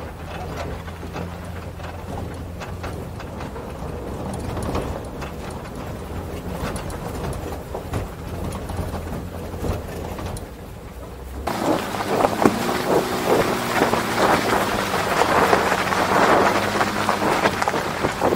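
Pickup truck driving on a dirt and gravel road: a low, steady engine hum with tyres crackling over the gravel. About eleven seconds in, the sound jumps louder to wind buffeting the microphone and tyres crunching gravel close by.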